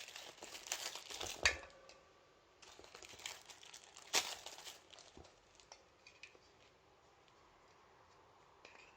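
Plastic packaging of D-cell batteries crinkling and tearing as it is opened, in two spells of rustling over the first five seconds with a sharp click about four seconds in, then little sound.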